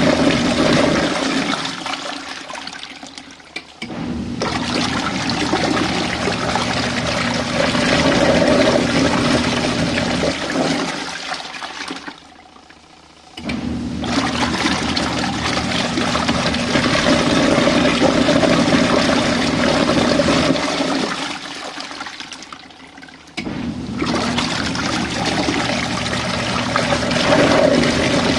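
Small RV washing machine running a cycle: water churning and swirling in the tub over a steady motor hum. It fades down and falls quiet about every ten seconds, then starts again abruptly.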